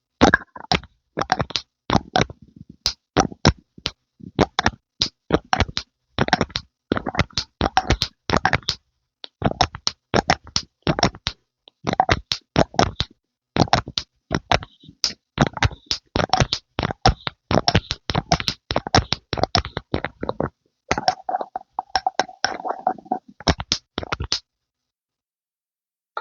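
Close-miked ASMR pumping sounds: quick, short, wet strokes, two or three a second, with dead silence between them. They pause briefly a few times and stop about two seconds before the end.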